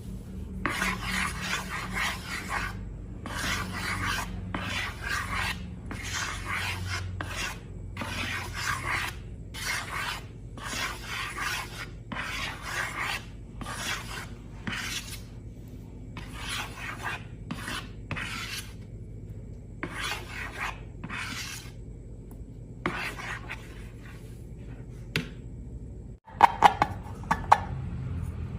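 Rhythmic rasping, rubbing strokes, about one a second, in a steady series. Near the end it gives way to a few sharp clicks.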